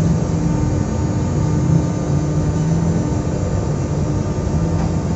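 Stationary Z2N (Z 20500-series) double-deck electric multiple unit, rame 164A, humming steadily as its onboard equipment runs. It is a continuous low drone with a held mid-pitched tone and a deeper tone that fades in and out.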